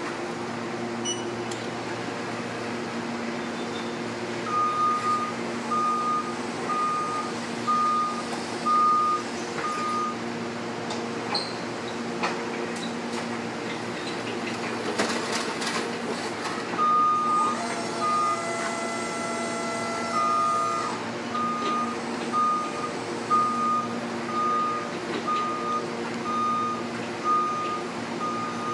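Electric warehouse reach truck's travel alarm beeping a bit more than once a second over a steady electric hum. The beeps stop for several seconds in the middle, when there are a few rattles and knocks. A longer, lower alarm tone sounds for about three seconds, then the beeping resumes.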